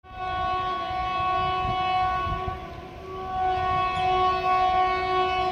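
Locomotive horn of the 12889 Tatanagar–SMVT Bengaluru Express sounding two long blasts, the second starting about three seconds in. It is the warning of a train approaching to run through the station without stopping.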